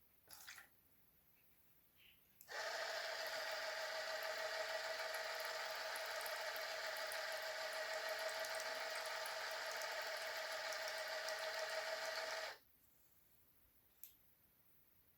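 A small electric motor in a homemade Arduino drinking machine runs steadily with an even whine for about ten seconds, then cuts off abruptly. A few faint clicks come before it and one comes after it.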